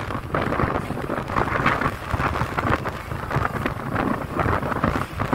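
Wind buffeting the microphone in irregular gusts while a Hong Kong double-decker tram runs along its tracks, its rumble underneath.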